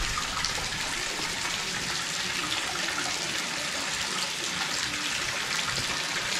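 Water running and splashing steadily as it pours through a gomukh (cow-mouth spout) into a small temple tank.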